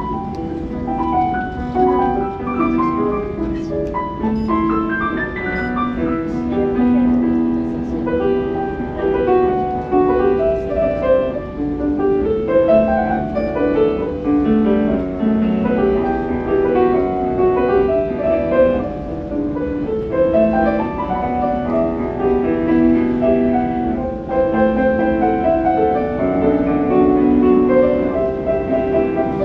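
Solo piano playing a continuous piece, with a low rumble underneath.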